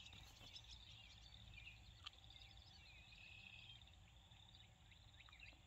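Near silence: faint background noise with faint high-pitched insect chirping.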